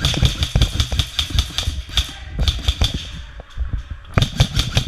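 Lancer Tactical airsoft gun firing in rapid full-auto bursts of sharp clicks: a long burst for about the first two seconds, a short one in the middle and another near the end.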